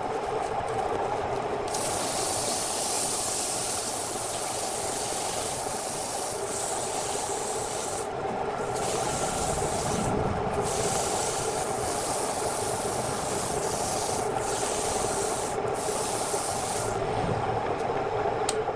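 Wood lathe running with a steady hum while something rubs on the spinning wood, typical of sanding, giving a loud hiss that breaks off briefly several times.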